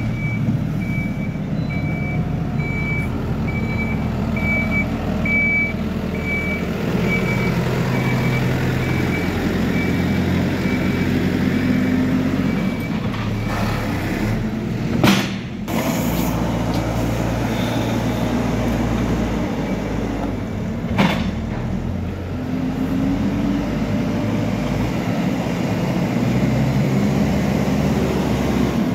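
Hidromek backhoe loader's diesel engine running and changing pitch as the machine drives and works dirt with its front bucket. Its reversing alarm beeps about twice a second for roughly the first nine seconds and starts again at the very end. Two sharp clanks, about halfway through and about two-thirds of the way through.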